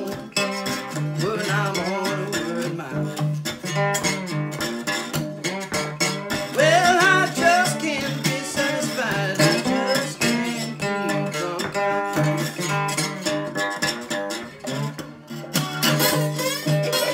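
Acoustic guitar played slide-style with a glass beer bottle as the slide: fingerpicked delta blues with gliding, wavering notes over a repeated low bass note.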